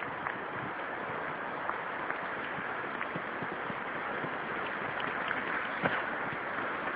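Steady wind noise rushing over a phone microphone, with a few faint knocks, a little stronger about six seconds in.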